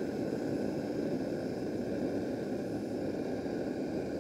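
Handheld gas torch's jet flame hissing steadily as it burns strips of vegetable-tanned leather in a ceramic crucible.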